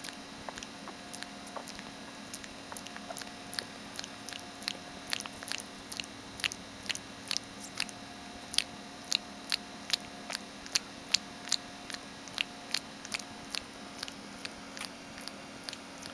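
Sleeping American Eskimo–Papillon puppy making a long run of short clicking sounds with her mouth, about two a second, growing louder toward the middle and softer near the end.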